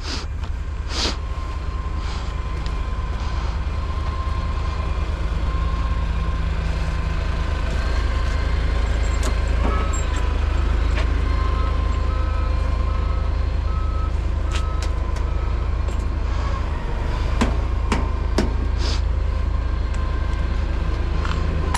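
Heavy diesel equipment engine running with a steady low rumble that grows slightly louder, and a reversing alarm beeping about five times, roughly once a second, midway through. A few sharp clicks or knocks are heard.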